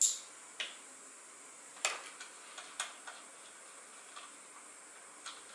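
A handful of sharp, light clicks and taps of small plastic parts being handled and fitted, a motorcycle's tip-over sensor and its bracket, scattered irregularly over a faint steady hiss.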